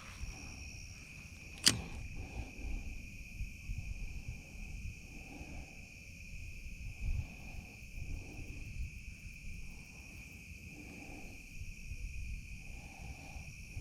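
Steady high-pitched insect chirring, with a soft low sound repeating every second or two and a single sharp click near two seconds in.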